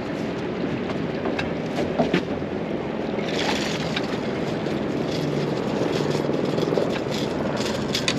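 Steady drone of a fishing boat's engine, with a few light knocks and clicks and a short hiss about three and a half seconds in.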